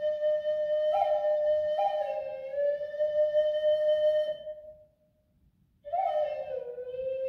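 Native American flute playing a slow, breathy melody: a long held note broken by two quick upward flicks, then a step down to a lower note that fades away about four and a half seconds in. After a pause of about a second, a new phrase starts with a flick and settles on a low held note.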